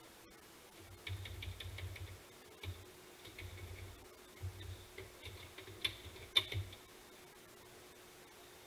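Keys typed on a computer keyboard: a quick run of clicks starting about a second in and stopping near seven seconds, over a faint steady hum.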